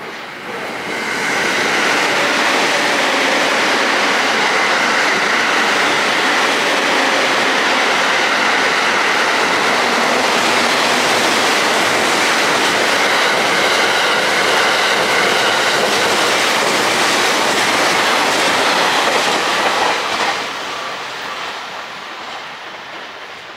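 JR East E001 series Train Suite Shiki-shima cruise train passing through a station at speed without stopping. It is a loud, steady rush of wheels on rail with a faint steady whine in it. The noise builds over the first two seconds, holds, and falls away about twenty seconds in as the train recedes.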